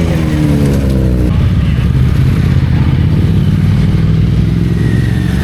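Motorcycle engines running: one drops in pitch over the first second or so as it slows or passes, then a steady low engine rumble goes on.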